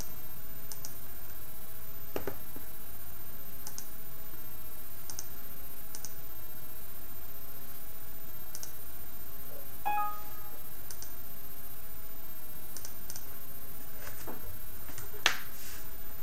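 Faint scattered clicks, about a dozen, over a steady background hiss, with a brief electronic tone of a few pitches sounding together about ten seconds in and a sharper click near the end.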